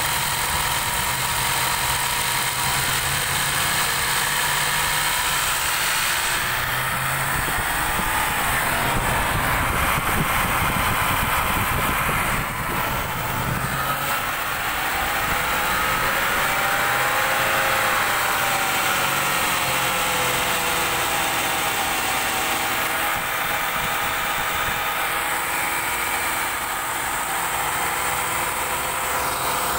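Land Rover L405 Range Rover engine idling steadily, heard at the open engine bay, with a faint whine that slowly rises and falls in pitch.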